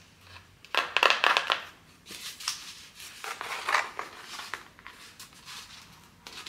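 Small corrugated cardboard box being worked at by hand to get it open, its flaps scraping and crackling in several bursts, loudest about a second in.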